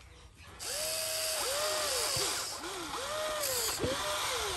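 Electric gear motors of a Huina RC excavator whining as the arm and bucket move. About half a second in, the motors start up, then spin up and wind down again and again, each rise and fall lasting under a second, over a gritty gear buzz.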